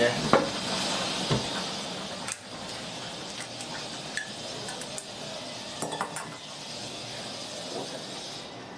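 Beef and potato braise cooking in a wok, a steady hiss, with a metal spoon clinking against the wok a few times.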